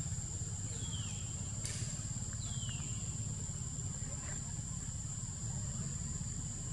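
Outdoor ambience: a steady low rumble under a constant thin high whine, with two short falling chirps, about a second in and again about two and a half seconds in, and a single sharp click between them.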